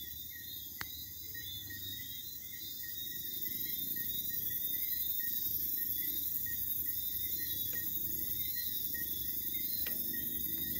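Insects chirping in a steady chorus: several high trilling pitches at once, slowly getting louder, with a sharp click about a second in.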